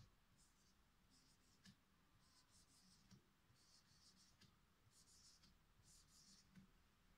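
Very faint strokes of a marker pen writing on a whiteboard: groups of short, high-pitched scratchy rubs, with a few light taps as the tip meets the board.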